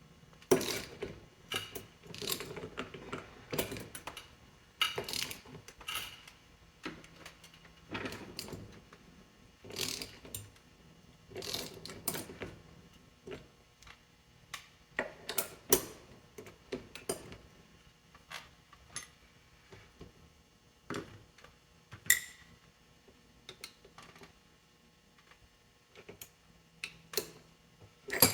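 Irregular metallic clinks, knocks and clanks of hand tools working a gear onto a hydraulic oil pump shaft held in a vise, coming in uneven bursts with pauses between.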